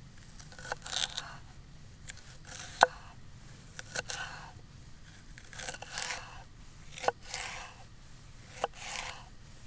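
A knife cutting vegetables: a run of short scraping strokes, roughly one a second, several starting with a sharp click.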